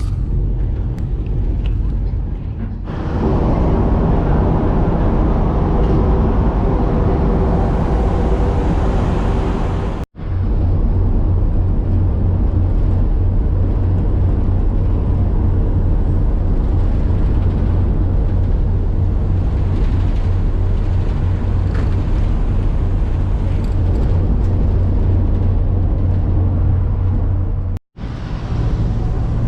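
Passenger boat's engine droning steadily under wind and water noise, with a strong low hum. The drone breaks off twice for a split second and changes in tone at each break.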